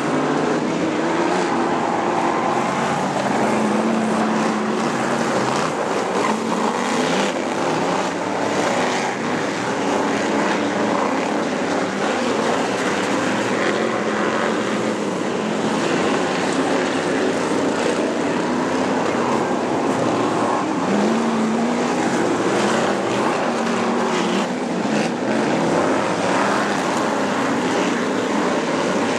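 A field of supermodified speedway cars' V8 engines running hard at racing speed: a loud, steady wall of engine noise, with engine pitches bending up and down as cars pass and lift for the turns.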